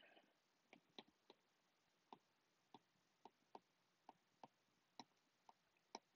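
Near silence broken by faint, irregular clicks, roughly two a second, of a stylus tip tapping an iPad's glass screen during handwriting.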